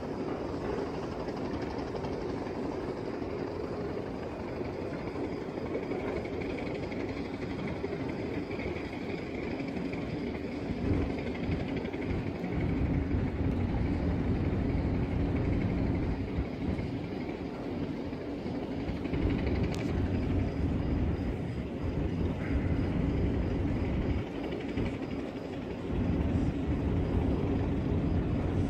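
A steady low rumble of a large ship under way, with irregular gusts of low buffeting, like wind on the microphone, growing heavier from about ten seconds in.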